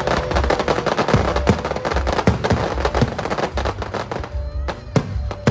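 Fireworks display: a dense run of crackling bursts and bangs from many shells at once, thinning to a few separate loud bangs near the end, over music with a steady low beat.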